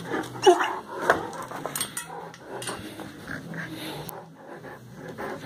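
A dog playing: one brief, high-pitched yip about half a second in, then a few light clicks and clinks.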